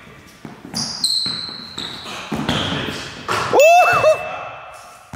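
Basketball bouncing on a hardwood gym floor, several bounces echoing in the large hall, with high-pitched sneaker squeaks about a second in and again past the middle.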